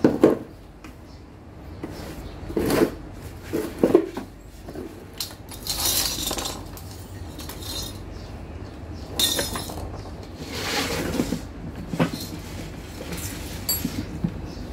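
Scattered knocks and clinks with a few short bursts of rustling: handling noise around a lawn mower whose engine is not running.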